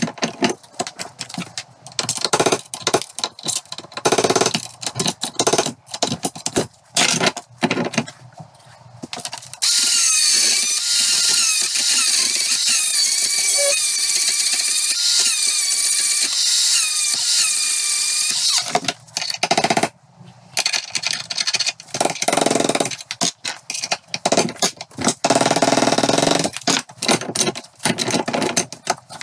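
Mini die grinder with a carbide burr cutting the old needle roller bearing out of a classic Mini top suspension arm. It gives one steady, loud, high whine that wavers in pitch for about nine seconds in the middle. Before and after it come short, irregular metal knocks and clanks.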